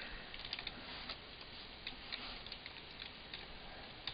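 Faint, irregular clicks of computer keyboard keys and a mouse button as short text is typed and submitted.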